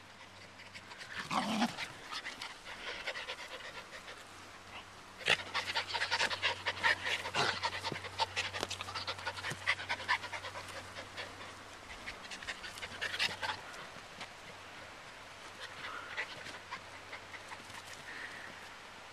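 Welsh terrier puppy panting close to the microphone in bouts, heaviest in the middle stretch, with a scatter of sharp clicks and rustles.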